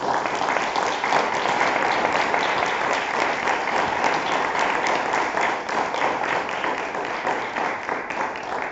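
Audience applauding: a dense round of hand claps that starts suddenly and begins to die away near the end.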